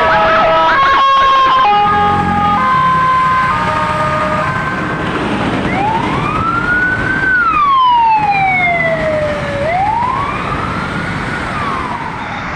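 Ambulance sirens on a city street over traffic noise. For the first few seconds one siren switches between several steady notes; then a slow wail takes over, rising and falling about every four seconds.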